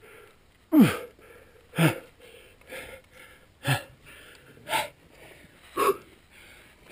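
A rock climber breathing hard with exertion, forceful exhalations about once a second. The loudest, about a second in, is a short grunt that drops in pitch.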